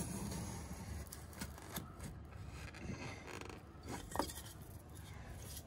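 Pencil scratching and rubbing along a board as a cut line is traced, with a few light clicks and knocks, the sharpest about four seconds in.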